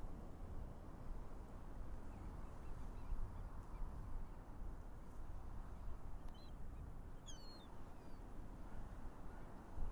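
Steady low rush of wind and sea water, with a few short, high bird chirps about two-thirds of the way in.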